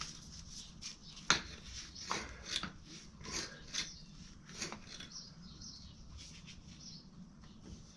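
Irregular short clicks and knocks from a hand bearing greaser being pumped and handled on a UTV's rear wheel hub, with one sharp knock about a second in.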